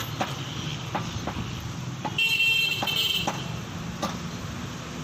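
A vehicle horn sounds once for about a second, a bit over two seconds in, over a steady low traffic rumble. Sharp knocks repeat about twice a second throughout.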